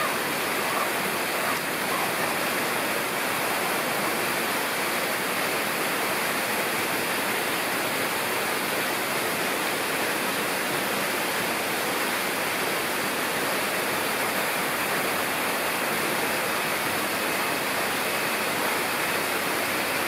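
Steady rush of running water, like a small waterfall or water feature pouring into a pond.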